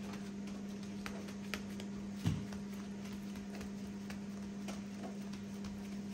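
Raw minced beef being pressed and spread by hand over a wrap tortilla: faint scattered ticks and one soft thump about two seconds in, over a steady low hum.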